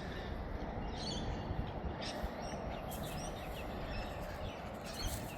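Faint, scattered bird chirps over a steady background rush of outdoor noise.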